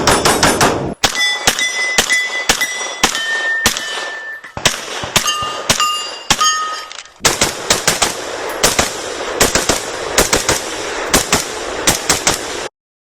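Rapid gunfire, shot after shot in quick strings. In the first half several shots are followed by short ringing tones at different pitches. A dense run of fast shots follows and cuts off suddenly near the end.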